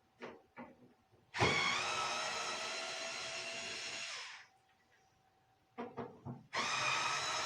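Power drill/driver backing out dryer panel screws: the motor runs steadily for about three seconds, stops, a few light clicks follow, then it starts again near the end.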